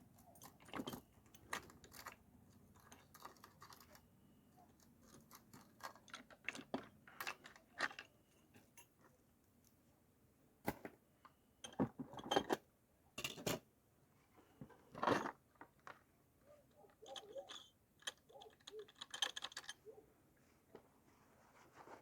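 Irregular metal clicks, clinks and knocks of tools and chainsaw parts being handled during clutch work, some ringing briefly.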